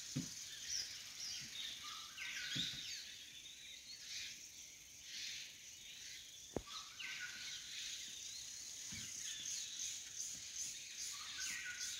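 Forest ambience: birds calling and chirping over a steady high insect hiss, with a few soft low thumps and one sharp click about six and a half seconds in.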